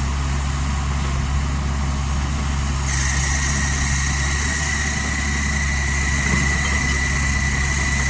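Kubota U50 mini excavator's diesel engine running steadily at low speed. About three seconds in, a steady high-pitched whine joins it and holds.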